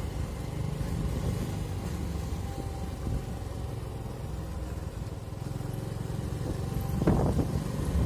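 Motor vehicle engine running steadily as it drives slowly along a street, with a short louder sound about seven seconds in.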